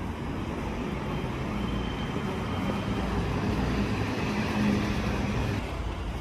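City street traffic: a steady rumble of road noise with a low engine hum from a nearby vehicle, which fades out near the end.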